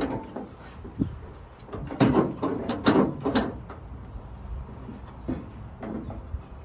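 Sharp clicks and metallic knocks from parts and tools being handled while a pickup tailgate lock is taken apart, with a cluster of several knocks about two to three and a half seconds in. Faint bird chirps near the end.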